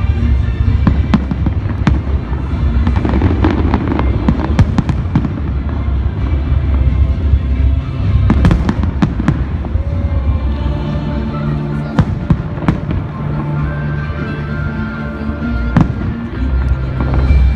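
Fireworks display bursting and crackling, with many sharp bangs, thickest a few seconds in and again about eight seconds in, over loud music with a heavy bass.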